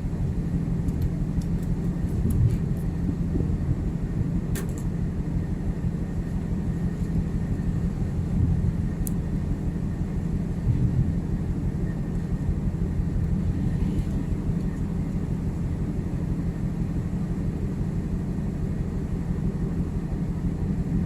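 Steady low machinery drone of a ship's engines or generators, with a few faint clicks.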